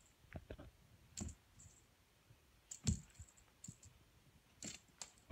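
Scattered soft clicks and light thumps from close-up play with a cat on carpet, the loudest about three seconds in.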